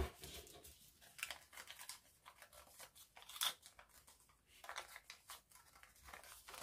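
Small sheet of colour paper rustling and crackling as fingers fold and press creases into it, a run of faint crisp crinkles with a louder crackle about three and a half seconds in.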